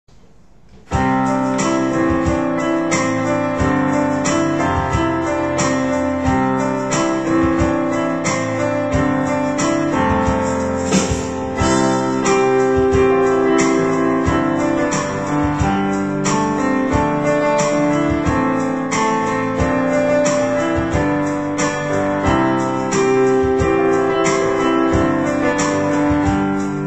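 Electronic keyboard played with a piano sound: sustained chords under a melody at a steady, even pace, starting about a second in.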